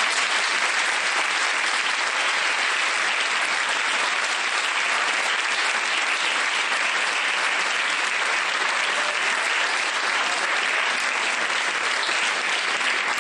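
Audience applauding, steady and sustained.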